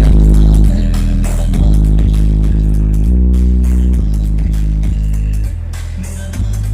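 Loud electronic music dominated by deep, held bass notes that change pitch about every second, with lighter instrument parts above.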